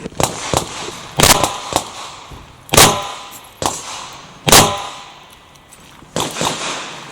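Revolver shots fired during a match stage: a string of sharp reports, the three loudest spaced a second and a half to two seconds apart, with smaller cracks between them.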